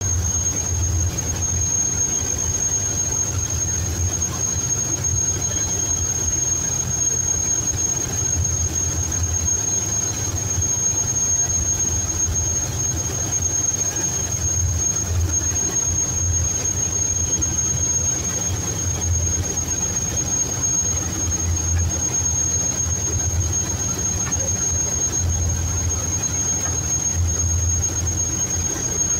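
Boat engine running steadily: a low drone with a thin, constant high-pitched whine over it.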